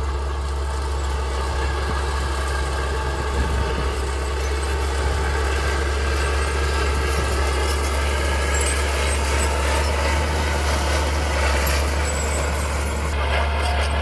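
Mini bulldozer's engine running steadily as it works, with no breaks or changes in pace.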